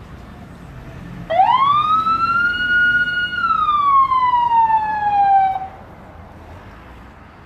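Ambulance siren giving one long wail. It starts about a second in, sweeps quickly up in pitch, holds, then slowly falls and cuts off a few seconds later.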